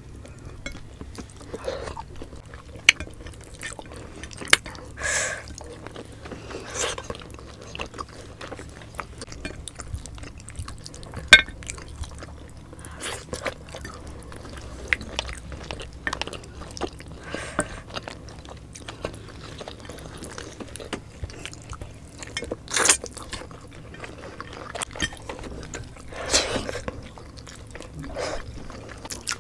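Close-miked eating sounds: soft chewing of fatty pork, wet lip smacks and finger licking, as scattered clicks and smacks with two much louder smacks about 11 and 23 seconds in.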